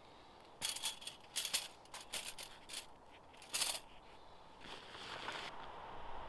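Thin bag rustling and crinkling while it is handled and something is pulled out of it. The sound comes in several short bursts, with softer rustling near the end.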